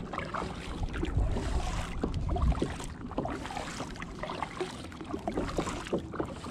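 Kayak paddle strokes: the blades dipping into the water with small irregular splashes and drips.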